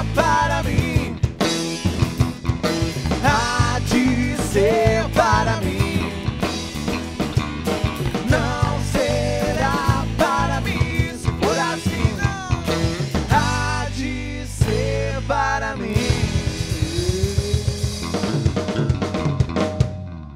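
A live band playing a song: drum kit with snare and bass drum under acoustic guitar, electric guitar and bass guitar, with a melody line bending over the top. Near the end the drums play a fast run of strokes, then the music drops away.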